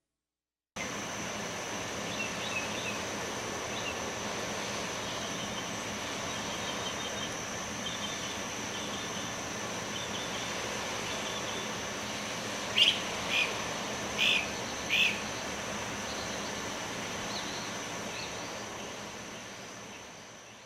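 Outdoor ambience: small birds chirping over a steady hiss with a thin high whine, four louder chirps coming close together about two-thirds of the way through. It fades out at the end.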